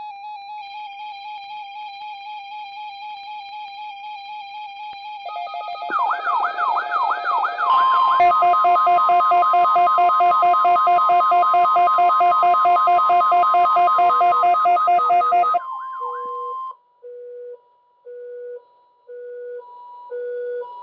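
Several NOAA weather alert radios going off together, set off by the weekly test transmission. A warbling alert tone sounds first, then rising swept siren-like tones join about six seconds in. From about eight seconds a steady high warning alarm tone sounds under rapid, even beeping. Near the end this gives way to slower, intermittent beeps.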